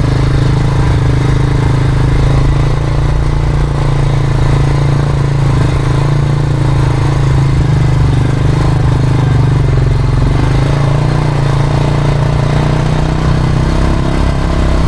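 ATV engine running steadily while riding a trail, its pitch shifting slightly near the end.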